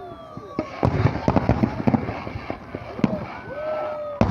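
Fireworks display going off: a quick run of sharp bangs and crackling pops, thickening about a second in, with a few whistling tones that fall in pitch.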